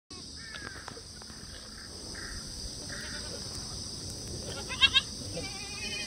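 Black goats in a herd bleating: scattered short calls, then two loud bleats in quick succession a little before the end and a longer, wavering bleat at the very end, over a steady high-pitched drone.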